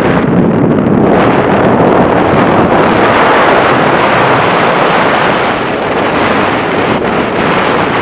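Steady, loud wind rush buffeting the onboard camera's microphone of a radio-controlled model plane in flight.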